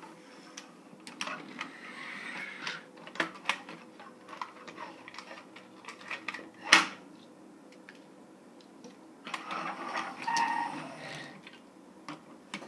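Toy vehicles of plastic and die-cast metal being handled and set down on a wooden table: scattered clicks and clatters, with one sharp knock about seven seconds in.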